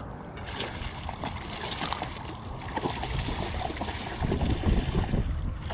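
A small hooked snook thrashing and splashing at the water's surface as it is played on the line, over steady wind noise on the microphone. The splashing and buffeting are loudest about four seconds in.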